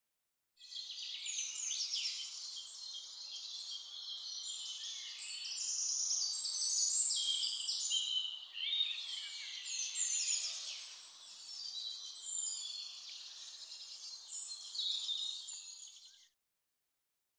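Many songbirds singing at once, a dense chorus of quick high chirps, trills and whistles. It starts about half a second in and cuts off abruptly near the end.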